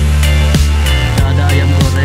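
Background music with a drum beat over deep sustained bass notes.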